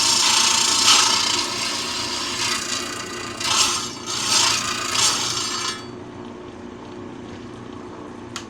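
Lapidary trim saw's diamond blade cutting through howlite: a loud grinding hiss that surges a few times, then falls away about six seconds in as the cut finishes, leaving the saw running more quietly. A sharp click near the end.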